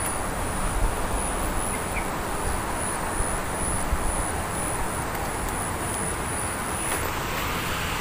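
Steady outdoor background noise with no distinct event, and a faint, high-pitched pulsing tone above it.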